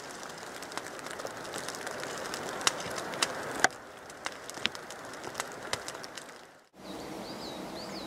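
Small wood campfire crackling, with irregular sharp pops over a steady hiss. About seven seconds in the sound cuts out and a bird chirps a few times in short, high notes.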